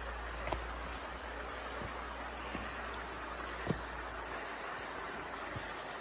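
Steady rush of a rocky jungle stream flowing over stones, with a few light knocks scattered through it, the sharpest just past the middle.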